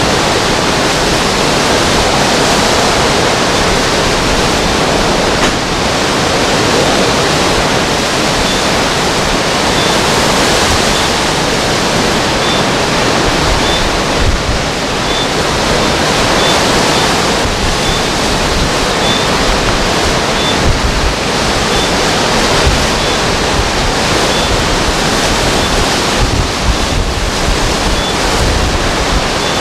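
Hurricane-force wind blowing hard across the microphone: a loud, dense, continuous rush that swells and eases in gusts.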